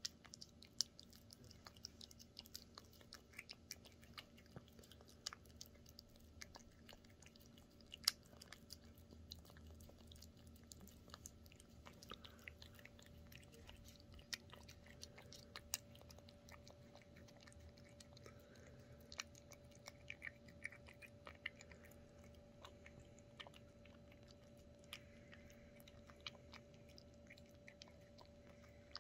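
A cat eating wet canned food from a stainless steel tray: quiet, irregular wet chewing and small clicks of teeth and tongue, a couple of them louder, over a faint steady hum.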